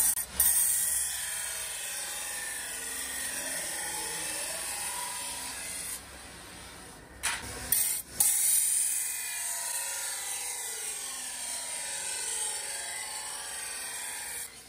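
Large pedestal grinding wheel grinding the edge of a steel chaff cutter blade made from leaf spring: a steady, high grinding hiss with a wavering pitch. It dips about six seconds in, with a few sharp loud bursts just before eight seconds, then the grinding goes on.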